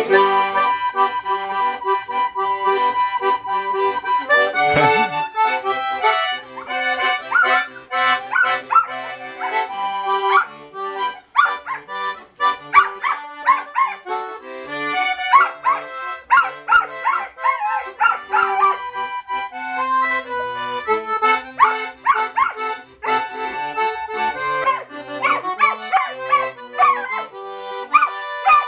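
Button accordion playing a vallenato tune while a dog howls along with it in repeated wavering, drawn-out howls that come and go from several seconds in.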